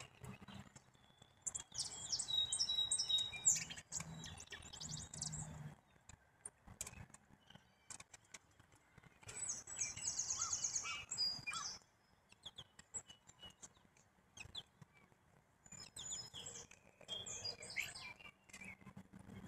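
Songbirds singing in quick phrases of high chirps and trills, three bursts of song: about a second and a half in, in the middle, and near the end, with a few sharp clicks between.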